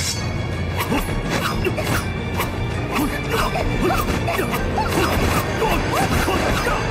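Dramatic film score under fight sound effects: a rapid series of sharp hits and clashes, about two a second, from a sword and hand-to-hand fight.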